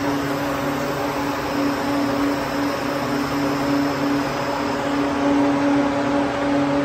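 Cookie production line machinery running: a steady hum with a constant low tone over an even hiss, with no pauses or changes.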